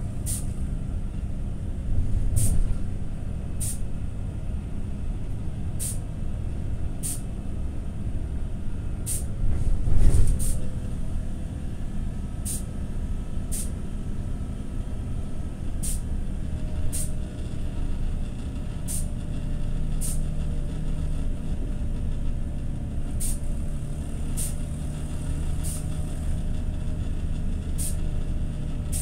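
TCV Karat city bus engine heard from inside the cabin while driving, a steady low rumble with short sharp high ticks coming about once a second and a brief louder swell about ten seconds in. The engine sound is the badly faulty one the bus is known for.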